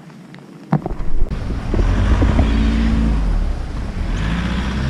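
A motor vehicle going by on a wet street: low engine rumble with tyre hiss, setting in suddenly with a knock just under a second in.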